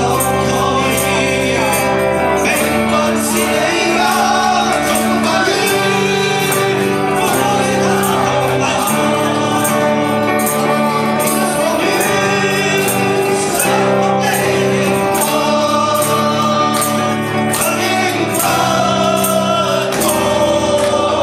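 Several men singing a Chinese-language pop-rock song together into microphones, backed by acoustic and electric guitars and a steady percussion beat.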